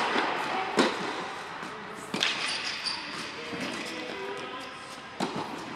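Tennis ball struck by rackets and bouncing on an indoor hard court: four sharp hits, one at the start, one just under a second in, one a little over two seconds in and one near the end, each echoing in the large hall.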